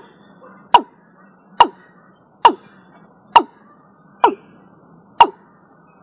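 Watercock (Gallicrex cinerea) calling: a short, sharp note that drops in pitch, repeated at a steady pace of a little more than one a second, six times, over faint background noise.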